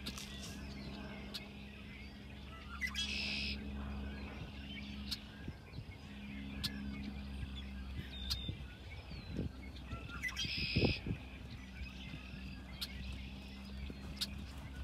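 Wild birds chirping and singing, with two short buzzy trills, over a steady low hum.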